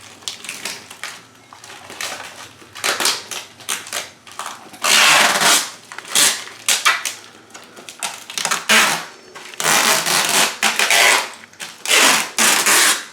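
Packing tape being pulled off the roll in a dozen or so ripping pulls and wrapped around a vacuum-sealed plastic bag of clothes, with the plastic crinkling between pulls.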